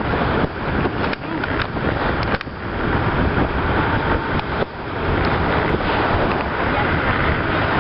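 Wind buffeting the microphone in uneven gusts, over the steady rush of the parasail tow boat running under way.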